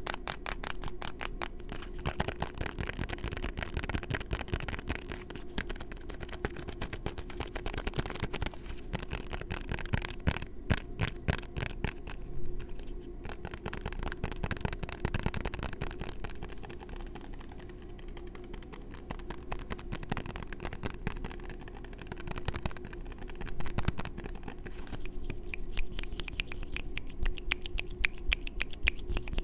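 Fast fingertip tapping and hand sounds right on a small microphone: quick runs of rapid taps near the start, around the middle and near the end, with scratchy rubbing between them. A faint steady hum lies underneath.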